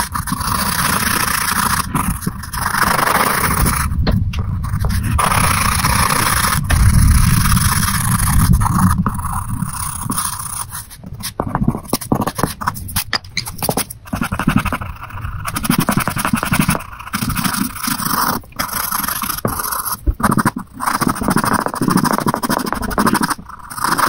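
Coloured pencil scratching and scraping on drawing paper in quick back-and-forth shading strokes, sped up by fast-forward, with brief breaks where the pencil lifts.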